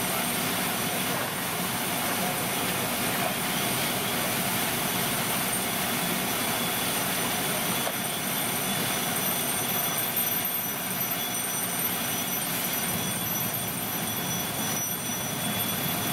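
Fire engine's diesel engine running steadily while driving its pump to supply a hose line, with a faint high whine over it.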